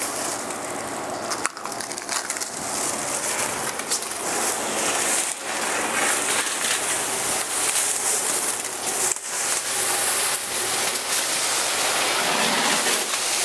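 Plastic masking sheeting, held up with painter's tape, being peeled off a wall and bunched up by hand: a continuous crinkling and crackling of thin plastic, with a few sharp snaps.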